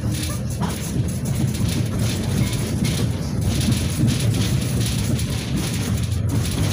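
Cabin noise of a moving KTM-5M3 (71-605) tram: a steady low rumble of the wheels rolling on the rails and the running gear, heard from inside the car.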